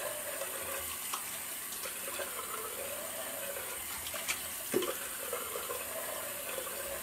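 Tap water running steadily into a bathroom sink, a continuous splashing hiss, with a couple of light knocks about four and five seconds in.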